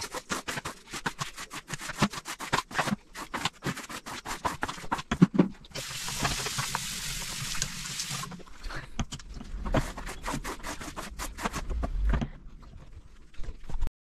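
Bathroom being scrubbed with a brush in rapid back-and-forth strokes, with a hiss of sprayed water for about two seconds near the middle before the scrubbing resumes and stops suddenly.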